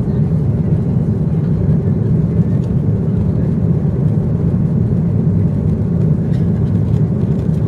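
Steady low rumble of a jet airliner's engines and rushing air, heard from inside the passenger cabin while the aircraft climbs after takeoff.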